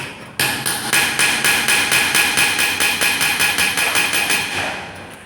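Rapid metal-on-metal hammer strikes, about six a second, each with a bright ring. They pause briefly just after the start, then run on evenly and fade out near the end.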